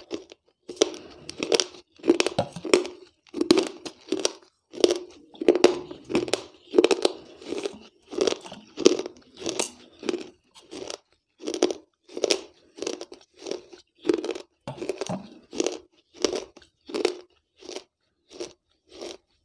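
Close-miked chewing of soaked terracotta from a clay gullak (money box), each bite crunching in a steady rhythm of somewhat under two crunches a second.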